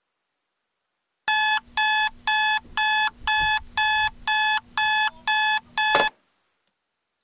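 Digital clock radio alarm beeping: about ten steady electronic beeps, two a second, starting about a second in. They cut off suddenly near the end as a hand comes down on the clock to silence it.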